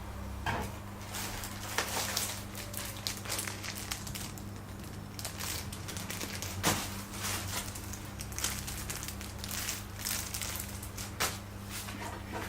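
Packaging being handled during unboxing: irregular crinkling and rustling with sharp clicks and knocks, over a steady low hum.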